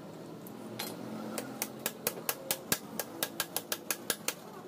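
A fast, even run of sharp metallic clicks, about five a second, from a hand tool working the jammed clutch-side crankshaft nut on a Bajaj auto-rickshaw engine. The clicks start about a second and a half in and stop shortly before the end.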